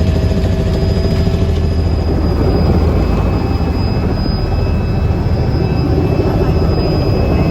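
Helicopter engine and rotor running with a loud, steady drone.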